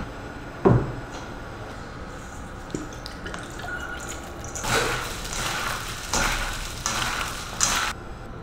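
A stainless steel mixing bowl set down on a wooden counter with a single knock about a second in. Near the end come four short rustling, squishing sounds as the wet, seasoned cucumber slices are handled in the bowl and moved toward a plastic bag.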